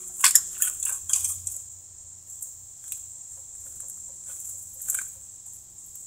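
A few light clicks and knocks from handling metal parts on a small lawn-tractor engine as the fuel tank is worked at by hand. Several come in the first second and a half, then single ones around three and five seconds in.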